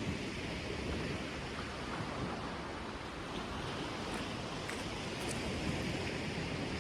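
Steady sea surf washing on a beach, with wind on the microphone.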